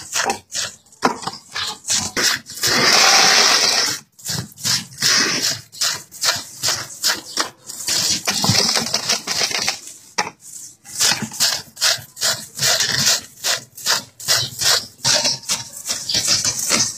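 Hands rummaging through a plastic bucket of wet, live animals: irregular squelching, rubbing and knocking, with a longer rush of noise about three seconds in.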